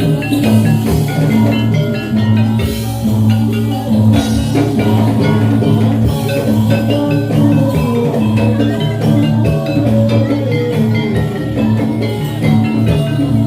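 Javanese gamelan music accompanying a jathilan dance: metallophones struck in quick, dense patterns over drums and a steady low bass.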